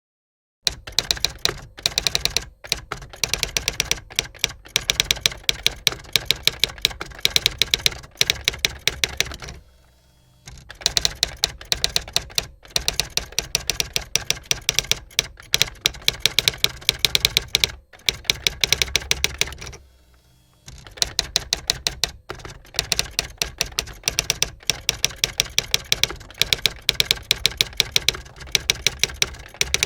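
Typewriter being typed on fast: rapid runs of key strikes, broken by short pauses about ten and twenty seconds in.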